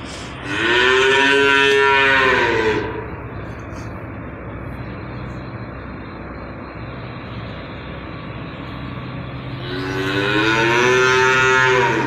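Holstein calf mooing twice, each moo a long, drawn-out call of about two seconds that rises and then falls in pitch, over a steady low hum.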